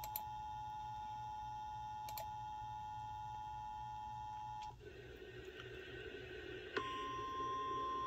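Emergency Alert System tones from an FM radio broadcast: a steady electronic tone that cuts off after about four and a half seconds, a couple of seconds of hiss, then a click and a slightly higher steady tone near the end. This is the attention signal that comes before a broadcast severe thunderstorm warning.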